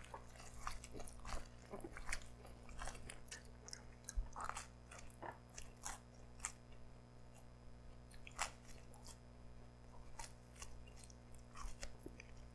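Close-miked chewing of a soft-crusted stuffed pizza slice: a bite near the start, then faint, scattered mouth clicks and smacks as it is chewed, without any crunch.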